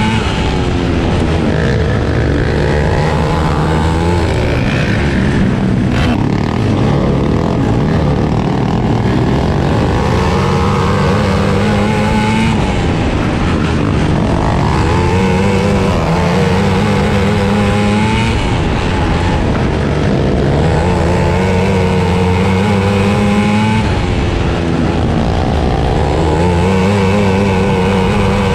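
450cc outlaw kart engine, a single-cylinder four-stroke, heard onboard as it races, its pitch climbing on each straight and dropping off into each turn, about every four seconds.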